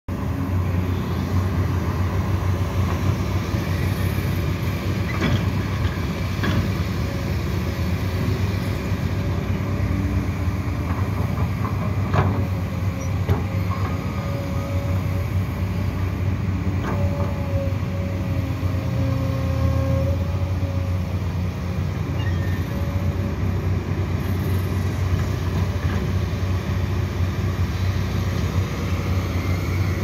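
Diesel engine and hydraulics of a crawler excavator digging, running at a steady working drone, with a few sharp metal clanks and a higher whine held for several seconds past the middle.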